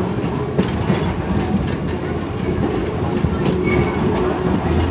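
Passenger train rolling along the track: a steady rumble of the cars' wheels on the rails, with a few clicks as the wheels pass over rail joints.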